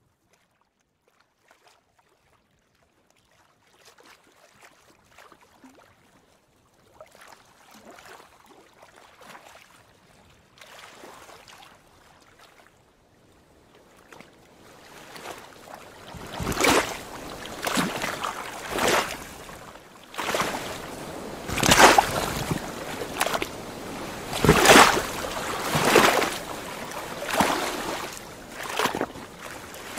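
Lake water lapping and splashing against a dock. It starts faint and builds to loud washes about every second or two in the second half.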